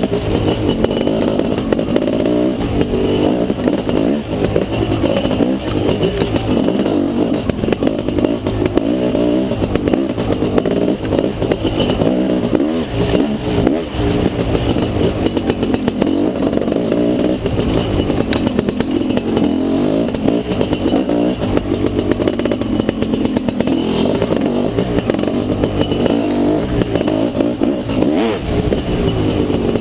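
Off-road dirt bike engine running hard under the rider, revving up and down continuously with throttle changes.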